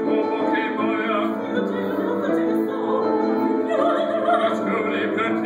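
Opera singers in a vocal trio singing, with held notes sung with vibrato.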